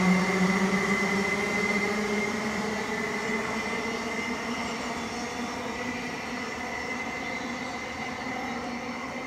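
Siemens Class 707 electric multiple unit leaving a station, its traction motors giving a steady hum and whine over wheel-on-rail rumble, fading gradually as the train draws away.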